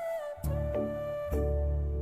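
Background music: a flute-like melody over sustained chords with deep bass notes.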